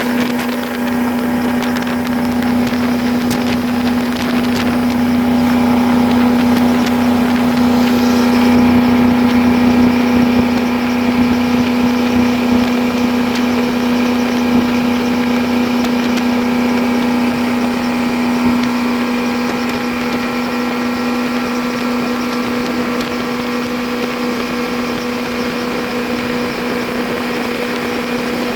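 Boat engine running at a steady speed, one even drone that holds its pitch throughout.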